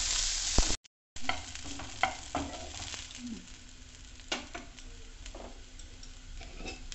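Chopped onion, carrot and green beans sizzling in oil in a frying pan, being stirred with a wooden spatula. The sizzle is loudest at first, cuts out briefly just under a second in, then carries on quieter with a few sharp clicks.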